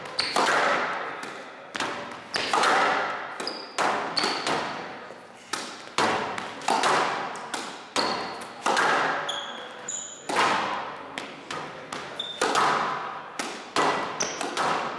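Squash racket striking the ball again and again, with the ball smacking off the front wall and floor, about one hit a second, each echoing around the glass-backed court. Short high squeaks of shoes on the court floor come between the shots.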